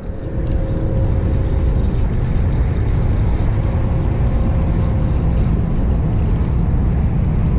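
Wind buffeting the camera microphone: a loud, steady low rumble that builds over the first second and then holds.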